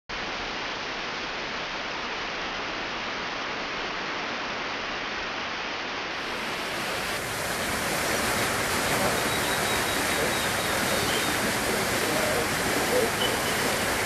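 Steady rush of running water from a garden water feature, growing louder about seven seconds in.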